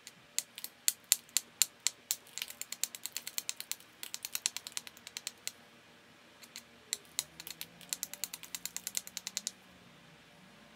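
A small hammerstone tapping and scraping along the edge of a Flint Ridge flint biface, making many quick, sharp stone-on-stone clicks. There are two runs of clicks with a short pause in the middle, the second fast and even like typing.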